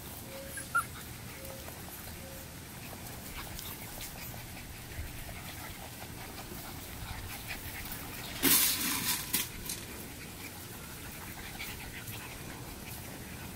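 Litter of boxer puppies at play, with a few short high squeaks in the first couple of seconds and a louder noisy burst lasting about a second past the middle.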